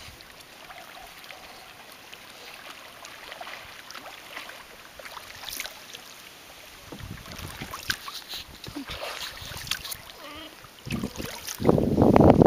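Light splashing and lapping of river water. About a second from the end, wind gusts hit the microphone with a loud, rumbling buffeting.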